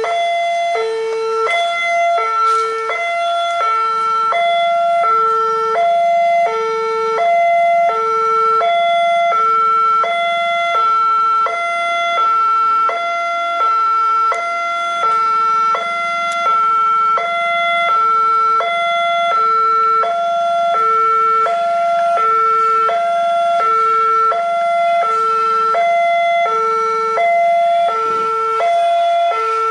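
Railway level crossing's electronic warning alarm sounding, a low note and a higher note alternating steadily, each about half a second long. It is the signal that a train is approaching the crossing.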